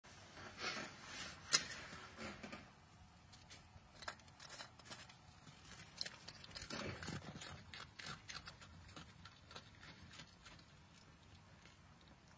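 A red fox at close range making scattered crunching and crackling noises in the snow. There is one sharp click about one and a half seconds in, and the crunching is busiest around seven seconds in before thinning out.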